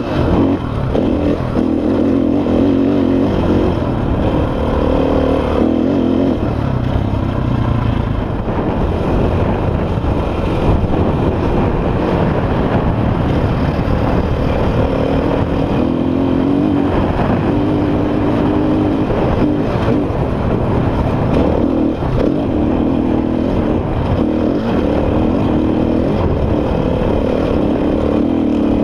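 Enduro dirt bike engine running under way, heard close up from on board, its pitch rising and falling every few seconds as the throttle is rolled on and off.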